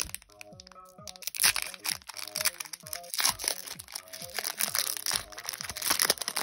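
Background music with a steady beat. About a second in, a foil trading-card booster pack starts crinkling and tearing loudly as it is ripped open by hand.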